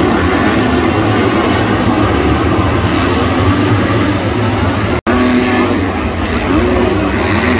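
Several motocross bikes racing, engines revving up and down as they power through corners and jumps. The sound cuts out for an instant about five seconds in, then the engine noise resumes.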